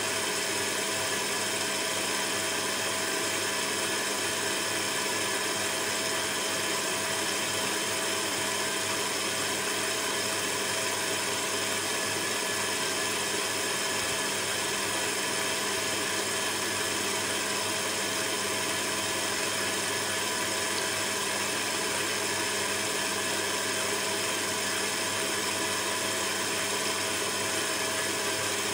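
Electric stand mixer running steadily at an even speed, its motor humming as the beater creams a margarine cake batter in a stainless-steel bowl.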